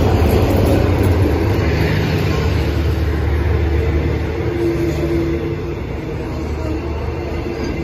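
Thai railway Hitachi diesel-electric locomotive and its passenger coaches rolling slowly past as the train pulls into the station: a steady low engine drone with a humming tone and rolling noise. It fades gradually as the locomotive moves on and the coaches go by.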